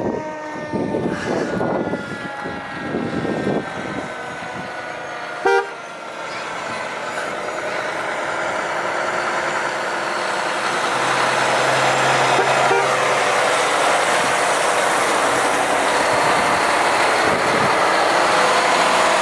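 Fire engines going by: a held warning tone slowly falling in pitch fades out over the first few seconds, a short horn toot sounds about five and a half seconds in, then the diesel engine and tyre noise of a fire engine swells and stays loud as it drives up and past.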